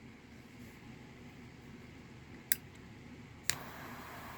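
Butane dual-flame torch insert in a Zippo case: a sharp click about two and a half seconds in, then another click about a second later as the torch lights and starts a steady hiss.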